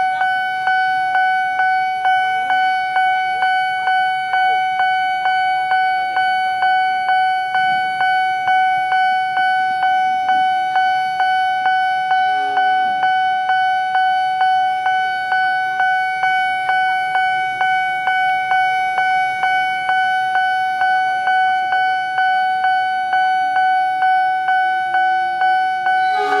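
Railway level-crossing warning bell ringing continuously, re-struck about twice a second with one steady ringing pitch, sounding while the crossing barrier is down for an approaching train.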